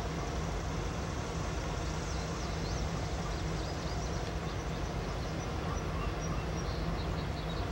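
Southern 2-8-2 steam locomotive No. 4501 and its passenger train approaching in the distance, heard as a steady low rumble with no distinct exhaust beat. Faint bird chirps come in from about two seconds in.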